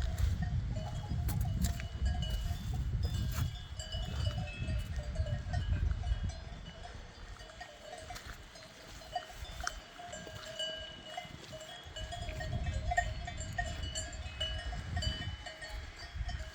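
Several cowbells on grazing livestock clanking irregularly at a few different pitches. A low rumbling noise underneath eases off around the middle and comes back.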